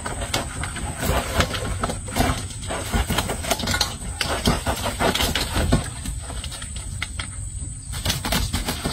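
A wet fishing net being hauled out of the water into a small boat, with irregular rustling and small knocks.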